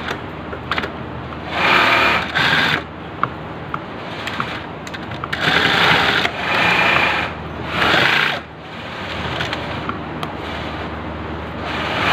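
Sewing machine stitching in several short runs of a second or so each, with a steady motor hum between them.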